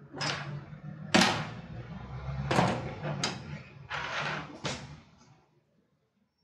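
Handling noise from reassembling an electronic drum kick tower: a series of scrapes and knocks as its plastic pad parts are fitted together. The strongest comes about a second in, and it stops about five seconds in.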